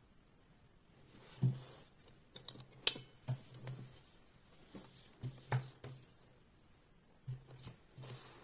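Crocheted cord-yarn handbag being handled and turned over on a table: soft thumps and rustling of the bag, with a few sharp clicks from its metal clasp and handle rings, the sharpest just before three seconds in.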